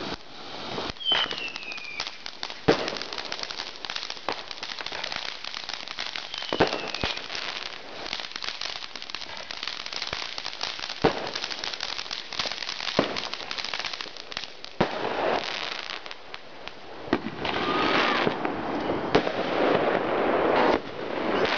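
Fireworks going off: crackling from a sparking ground fountain and a string of sharp bangs, with two short whistles falling in pitch about one and seven seconds in.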